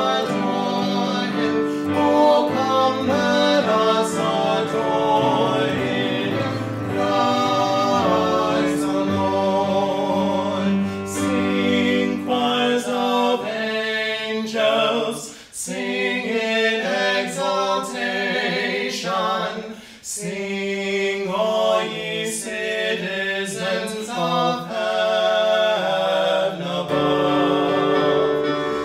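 A man singing a Christmas song, accompanied by classical guitar and keyboard.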